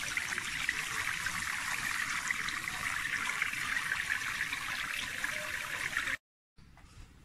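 Water pouring from a plastic watering can into a stainless-steel basin already holding water, a steady splashing stream that cuts off abruptly about six seconds in.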